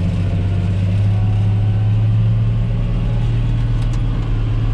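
John Deere 8100 tractor's six-cylinder diesel engine running steadily under load while pulling a disc harrow, heard from inside the cab as a steady low hum.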